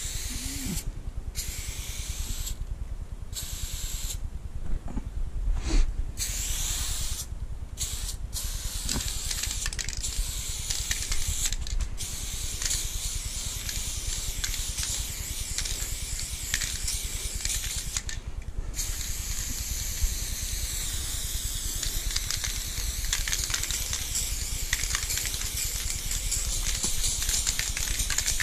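Aerosol spray-paint can spraying: several short bursts, then long, nearly continuous passes broken by a few brief pauses.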